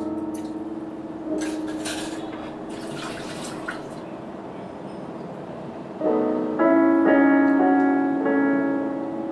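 Ambient soundtrack music: held keyboard notes, with a louder, fuller chord coming in about six seconds in and fading near the end.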